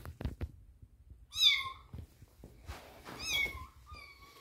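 A cat meowing three times, high calls about a second and a half apart, the first two falling slightly and the last drawn out and level. A few short taps come just before the first meow.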